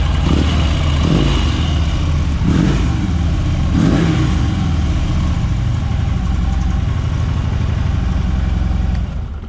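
Harley-Davidson FLHTP police motorcycle's V-twin engine idling, blipped about four times in the first four seconds, then shut off near the end.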